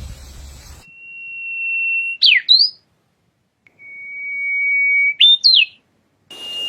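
A bird sings a clear whistled song: one long, steady note that swells in volume, then ends in two quick, sharp up-and-down notes. It sings this phrase twice, the second time a little lower in pitch.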